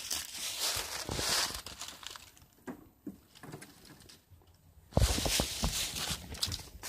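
Rustling and crinkling handling noise on a hand-held phone's microphone. It comes in two stretches: one fading out after about two seconds, and a louder one starting about five seconds in, with a few faint clicks in between.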